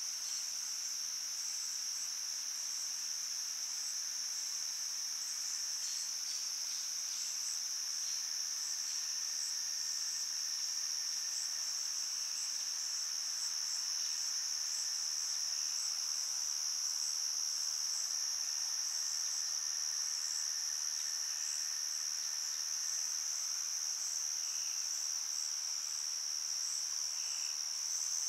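Chorus of night insects, such as crickets, making a steady high-pitched trill with a faint pulsing shimmer above it.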